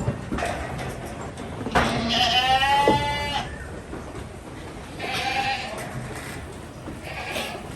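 Goats bleating: one long, quavering bleat about two seconds in, then a shorter bleat about five seconds in and a brief faint call near the end.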